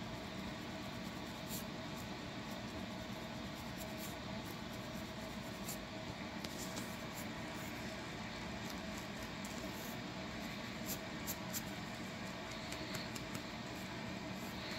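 Fingernails scratching a dry, flaking scalp through natural hair: irregular short scratchy ticks over a steady background hum.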